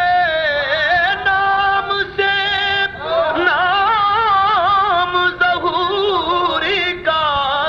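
A man singing an Urdu naat in long, ornamented held notes. The pitch wavers around each note, and there are short breaks for breath.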